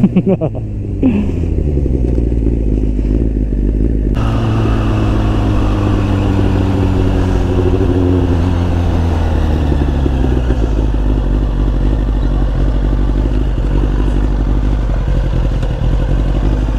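Sport motorcycle engine running as the bike rides up at low speed. Its note drops sharply in the first second, holds steady with a hiss of wind or road noise from about four seconds in, then eases lower about halfway through and stays low and even.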